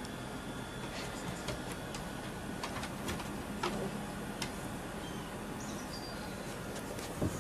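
Scattered light ticks and taps: a dog's claws clicking on wooden deck boards and tennis balls knocking against the wood as it picks them up, with one louder knock near the end, over a steady background hiss.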